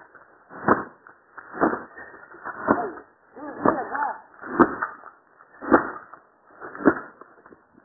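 A bat beating an old chair, blow after blow, about one strike a second, seven strikes in all.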